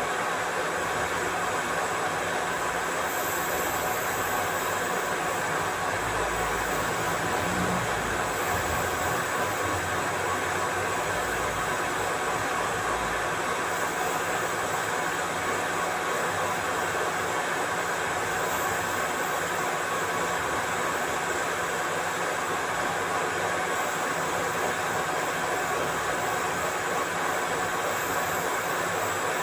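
Machine running steadily: an even mechanical hum and hiss with a few faint steady tones, unchanging throughout.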